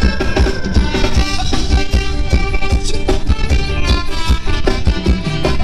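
Live band playing Thai ramwong dance music over loudspeakers, with a steady drum beat under sustained melodic lines.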